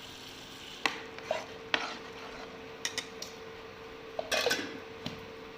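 A metal spoon clinking and knocking against a cooking pan while tomato puree is stirred into frying onion paste. The clinks come in a few scattered strikes, with a louder run of them near the end.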